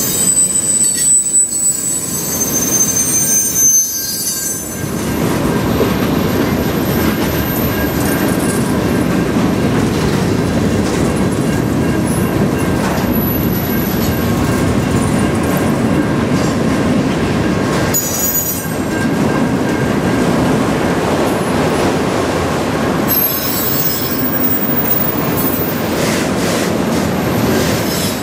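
Freight cars of a mixed freight train rolling steadily past with a continuous rumble and clatter of wheels on rail. High-pitched wheel squeals come in the first few seconds, again past the middle, and once more near the end.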